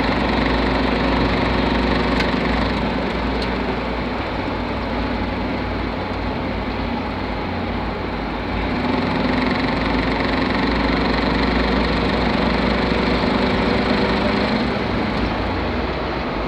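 Vehicle drivetrain with a V5MT1 five-speed manual gearbox running steadily, a knock in the gearbox being the fault it is recorded for; the level dips slightly for a few seconds in the middle and then rises again.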